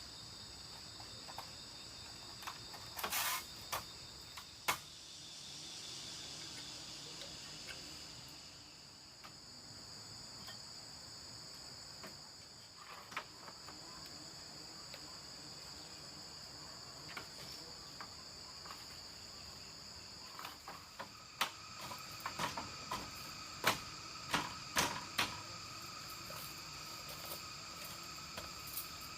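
Steady, high-pitched insect chorus running on without a break. Scattered sharp knocks and clicks over it, with a cluster of louder knocks late on.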